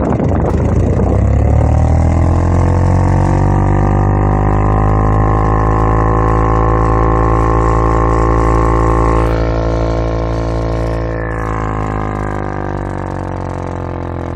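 Car ventilation blower fan running flat out with a loud, deep droning hum like a turbine, rising in pitch over the first couple of seconds as it spins up, then holding steady before settling slightly lower and sinking near the end.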